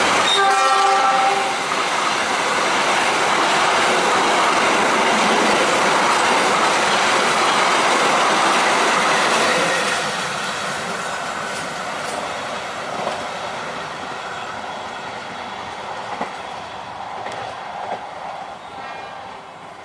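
Diesel-hauled express passenger train passing through at speed: a short horn note just after the start, then the steady rush and clatter of the carriages on the rails, fading after about ten seconds as the train moves away, with a few wheel clicks over rail joints near the end.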